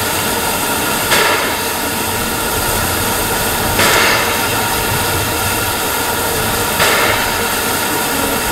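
The Coffee Pot steam motor coach (Steam Motor Coach No. 1) standing with steam blowing off from its boiler, a steady loud hiss that swells louder three times.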